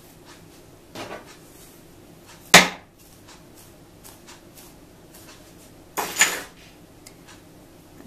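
Handling noise while hair is braided on a mannequin head. Faint rustles and ticks of the hands in the hair, a sharp knock about two and a half seconds in, and a short scraping rustle about six seconds in.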